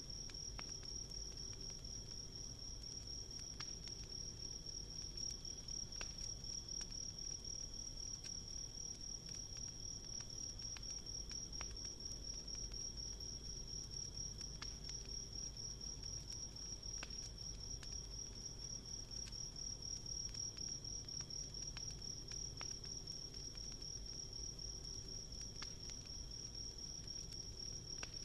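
Insects trilling without pause in one steady high-pitched tone, with faint scattered crackles of a burning wood campfire underneath.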